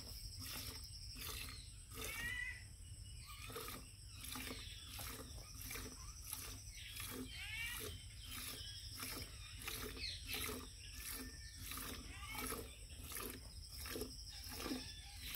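A cow being milked by hand: short squirts of milk hitting the inside of an aluminium milk can, about two a second in a steady rhythm.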